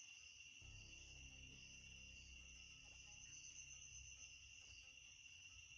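Near silence: room tone with a faint steady high-pitched ringing, and a low hum that comes in about half a second in.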